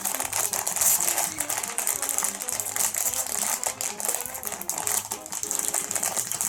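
Small hard plastic LEGO minifigure pieces clicking and clattering together, with rustling, as they are sifted through by hand to find a missing part.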